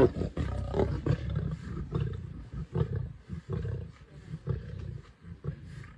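Lions growling in low, repeated rumbles while feeding on a buffalo carcass, with short clicks of chewing and tearing meat; the growls get quieter toward the end.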